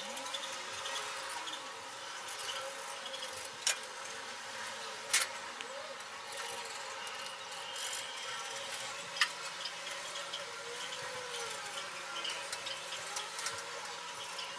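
Pencil scratching across a steel sheet as it traces around a small template, with a few sharp taps three times.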